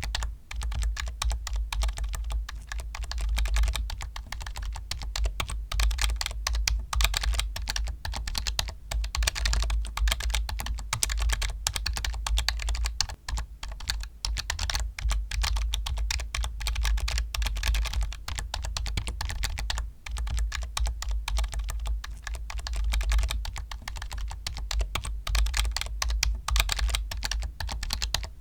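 Computer keyboard being typed on fast and continuously: a dense stream of key clicks, with brief lulls about halfway through and again about two-thirds of the way in.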